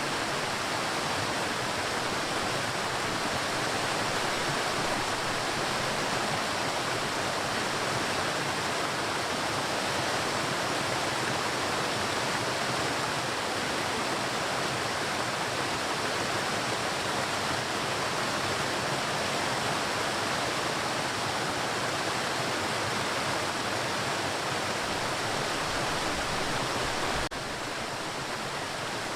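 Waterfall: a steady rush of falling water, dipping slightly in level all at once near the end.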